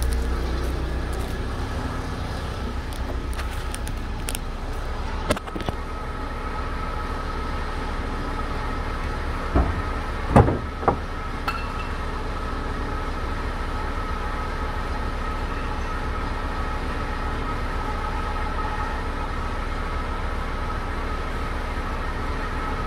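Truck engine idling: a steady low rumble with a faint steady whine above it. A few sharp knocks break in about five seconds in and again around ten seconds in.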